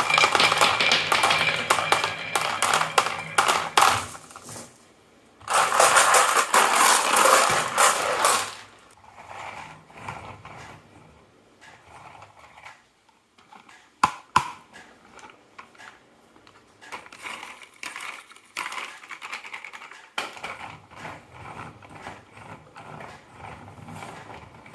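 Marbles rolling and clattering down a HABA wooden marble-run track: a dense rattle of clicks, a second loud burst of clatter about six seconds in, then sparser, quieter clicks with two sharp knocks about halfway through.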